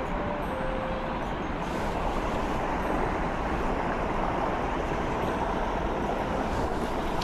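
Strong wind blowing across the microphone: a steady noise.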